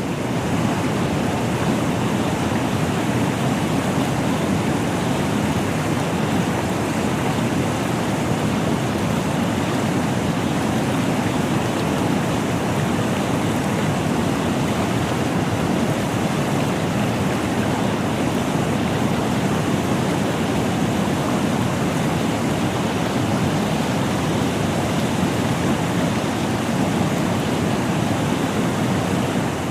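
Steady roar of falling water from a large waterfall, even and unbroken throughout.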